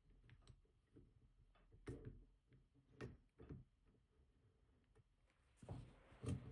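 Faint, scattered metallic ticks and clicks from a disk-detainer pick and tensioner being worked in the keyway of a Rosengrens safe deposit box lock, a few isolated clicks over several seconds.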